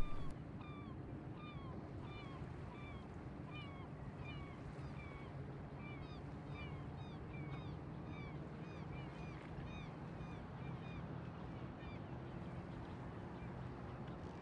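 A bird calling over and over in short rising-and-falling chirps, about two a second, thinning out after about nine seconds. Underneath is a steady hiss of wind and water with a faint low hum.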